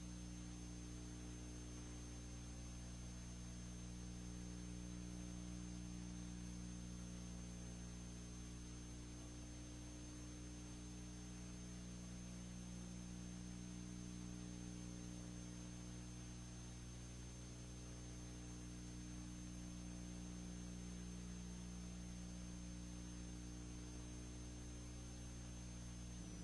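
Faint, steady electrical hum with hiss and a thin high whine, and no other sound: the noise floor of a silent-film transfer that has no soundtrack.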